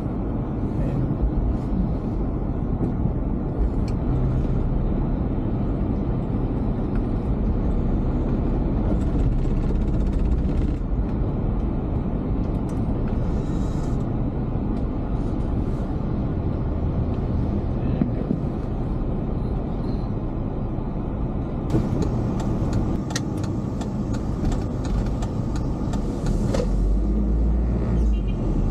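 Steady road and engine rumble of a car driving along a city street. Over the last several seconds there is a run of sharp clicks and rattles, and the low rumble swells near the end.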